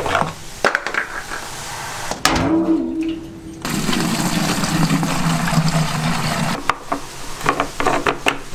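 Clicks of a pit bike's plastic fuel cap being handled, then petrol poured in a steady stream from a metal jerry can into a plastic jug for about three seconds, then more clicks near the end as the tank cap is worked again.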